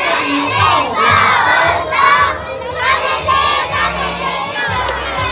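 A crowd of schoolchildren shouting and cheering, many high voices overlapping with no break.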